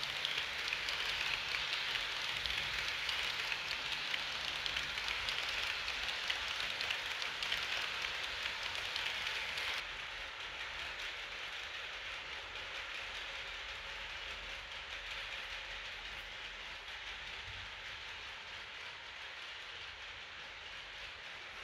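HO-scale model passenger coaches rolling along layout track: a steady fine rattle of small metal wheels on the rails. It drops quieter about ten seconds in and keeps fading as the train runs farther off.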